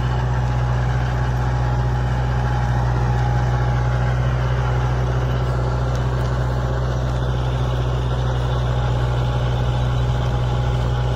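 Kubota MU4501 tractor's four-cylinder diesel engine running steadily under heavy load, driving an 8-foot PTO rotavator while pulling a disc harrow behind it. A constant deep drone with no change in pitch.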